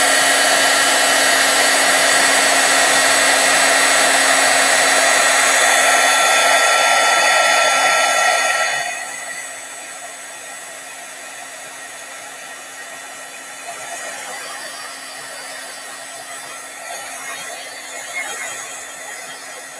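Heat embossing gun blowing steadily with a fan whine, melting embossing powder on cardstock. It drops noticeably quieter about eight and a half seconds in and keeps running.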